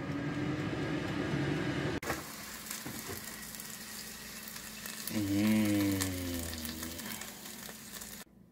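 Hot, freshly air-fried frankfurters sizzling in the open air fryer basket. A man's voice hums briefly about five seconds in.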